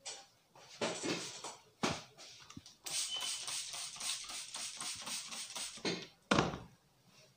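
Hands rubbing and working wet hair and skin in a head and neck massage, a fast run of rubbing strokes through the middle, with a louder sharp burst near the end.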